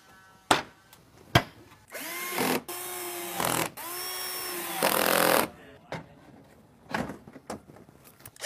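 Cordless drill run in three short bursts, driving bolts into the car body. Each burst spins up in pitch and winds down at the end. Sharp clicks and knocks from the work come before and after the runs.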